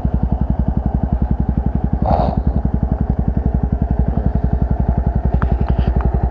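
SYM Wolf 125 motorcycle's single-cylinder four-stroke engine idling steadily, an even putter of about twelve pulses a second.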